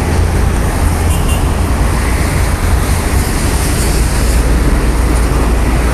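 Steady, loud low rumble of road vehicle and traffic noise, with no single event standing out.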